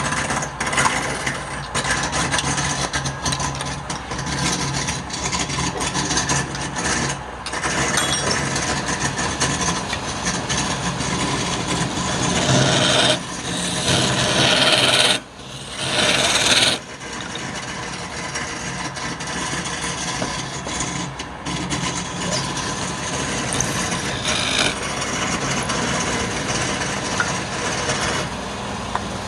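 Wood lathe running with a steady motor hum while a tool scrapes against the spinning wood, giving a continuous rasping sound. It grows louder for a few seconds about halfway through, with a brief break in the middle of that stretch.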